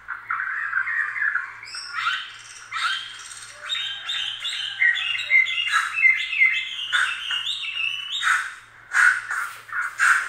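Rapid high-pitched chirps and squeaks, many short calls in quick succession, some stepping up and down in pitch, with a few sharp clicks near the end.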